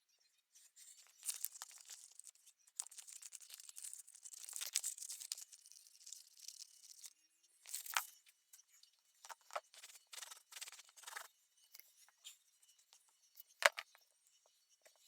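Rustling and tearing of a light material, in short bouts, with two sharp clicks, the loudest about 13 to 14 seconds in.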